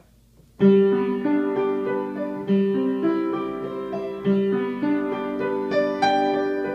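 Upright piano playing a slow piece of held notes and chords, starting about half a second in, with a stronger note or chord every couple of seconds.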